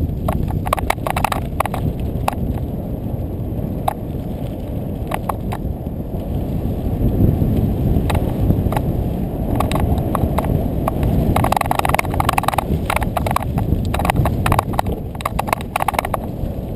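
Mountain bike riding over a rocky dirt singletrack: a steady rush of wind and rolling noise on the camera microphone, with frequent sharp clicks and rattles from the bike and tyres over stones, coming thick and fast in the second half.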